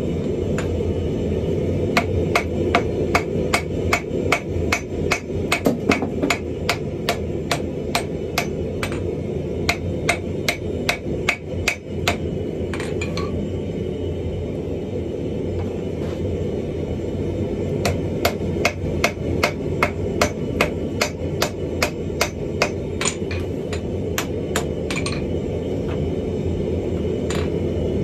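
Hand hammer striking red-hot wrought iron on an anvil, with a ringing clang at each blow. The blows come in two fast runs of about three a second, with a pause of several seconds between them, over a steady low rumble.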